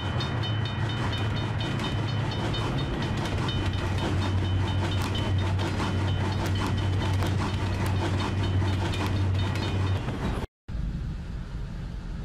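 Train sound effect under an animated intro: a steady low rumble with the regular clickety-clack of wheels over rail joints and a repeated high ringing. It cuts off abruptly near the end and gives way to quieter open-air background noise.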